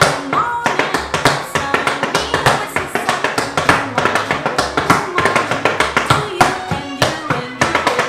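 Fast tap-dance footwork: the metal taps on tap shoes striking the floor in quick, dense rhythms over acoustic backing music.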